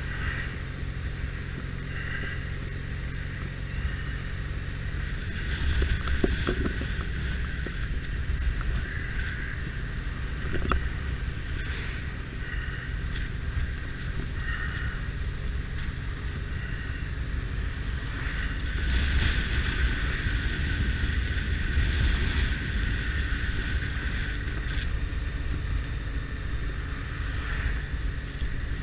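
Motorcycle engine running while under way, with wind noise. It is steady for the first few seconds, then louder briefly about six seconds in and again for several seconds around twenty seconds in.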